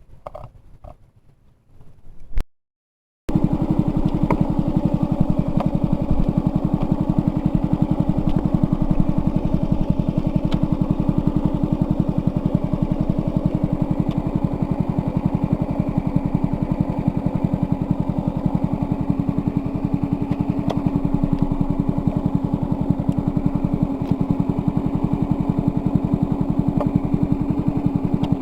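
A small engine running steadily at a constant speed, with rapid even firing pulses. It starts abruptly about three seconds in, after a short break in the sound.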